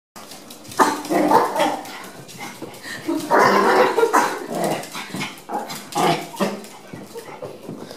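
Small Chihuahuas barking in play, in three main bursts about a second in, midway and near the end.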